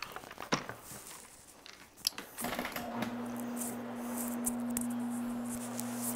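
Electric rotary floor machine for carpet cleaning switched on about two and a half seconds in, then running with a steady hum as its hog's-hair fibre pad turns on the carpet. A few light clicks and taps come before it starts.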